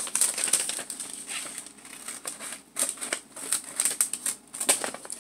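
Scissors snipping the edges of a paper envelope, with the paper rustling and crinkling as it is handled: a run of irregular short clicks and crackles.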